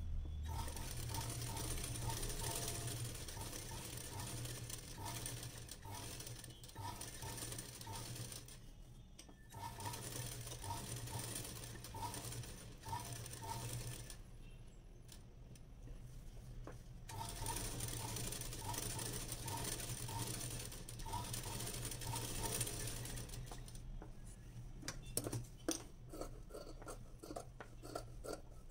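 Durby sewing machine stitching layers of blouse fabric in three runs of several seconds each, with short pauses between them, and a regular light ticking about two or three times a second while it runs. Near the end it stops, and the fabric is handled with scattered clicks and rustles.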